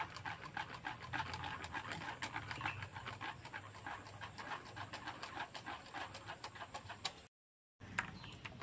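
A spoon beating thin batter in a steel bowl: a fast, even run of light clicks against the metal, several a second. It cuts out for about half a second near the end, then a few clicks follow.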